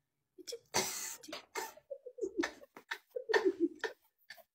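A person laughing in several short bursts, with a noisy burst about a second in.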